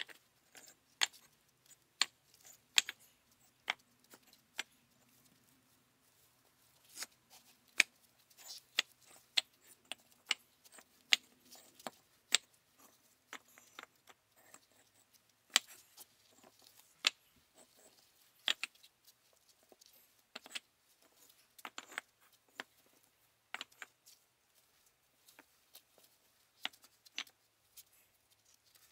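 Bricks clacking and knocking against one another as they are stacked by hand, a long run of irregular sharp clinks.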